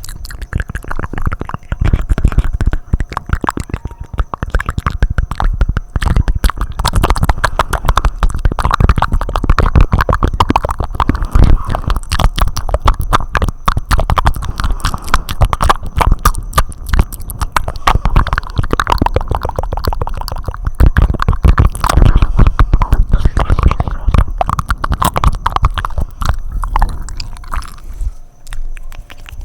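Fast, wet mouth sounds made close to an ASMR microphone: a dense, unbroken stream of rapid lip smacks, tongue clicks and flutters, thinning out near the end.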